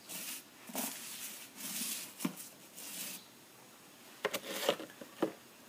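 Toothbrush scrubbing soapy suds onto the bead of a lawn mower tire: several soft, wet brushing strokes. About four seconds in come a few sharp clicks and taps.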